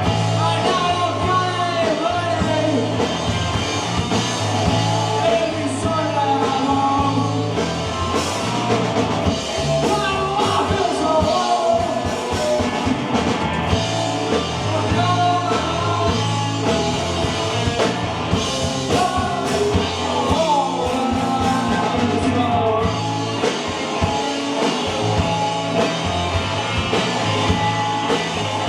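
Live rock band playing a song, with a singer over electric guitar, bass and drums.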